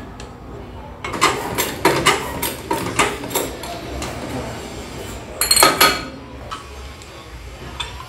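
Metal clinks and knocks of a lug wrench and wheel nuts as a car's front wheel is taken off, with a louder clatter about five and a half seconds in.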